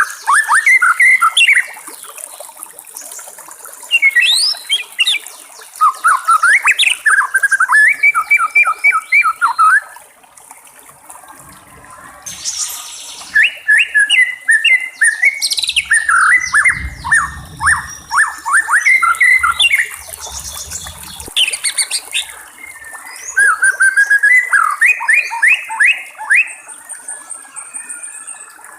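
White-rumped shama singing loud, rapid, varied phrases of whistles and chattering notes, in about four bouts with short pauses between them.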